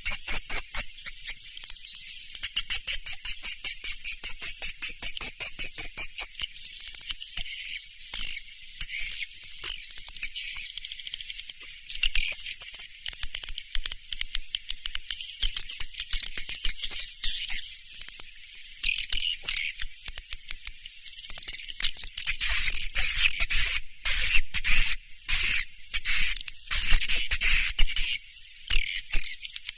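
Swiftlet call recording, the kind of lure call played to draw swiftlets into a nesting house: a dense, continuous high-pitched twittering of rapid chirps. In the last several seconds it turns louder and more broken.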